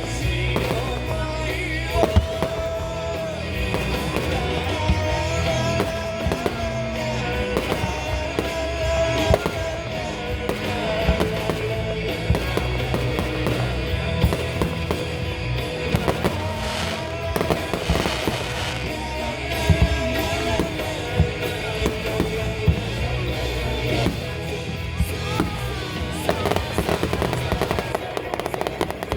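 Fireworks going off in a rapid series of sharp bangs over music playing throughout.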